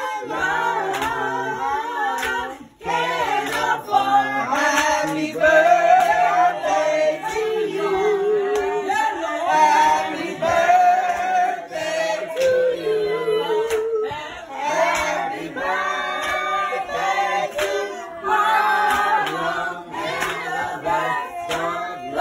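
A group of children and adults singing a birthday song together.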